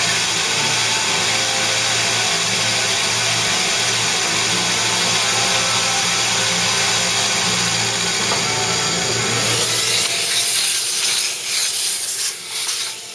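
PM-30 milling machine converted to CNC, its carbide four-flute end mill cutting dry into cast iron with a steady machining noise. About ten seconds in the cutting stops and gives way to irregular rustling as the chips are brushed out of the pocket by hand.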